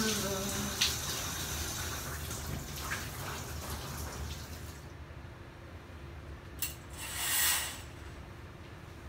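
Water running in a bathtub, a steady hiss that stops about five seconds in. Near the end a short rushing swish: the shower curtain's rings sliding along the rod as the curtain is pulled open.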